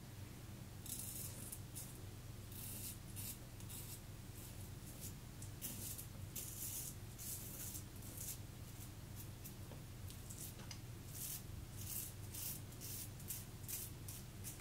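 Leningrad-1 safety razor with a Polsilver blade scraping through lathered stubble in many short strokes, a soft rasp on each stroke: the first pass of a wet shave.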